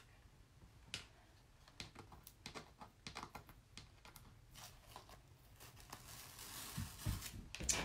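Faint crinkling and tearing of a plastic adhesive chalk transfer being peeled off a chalkboard, with scattered small ticks and then a longer peeling hiss near the end. There is a soft low knock near the end.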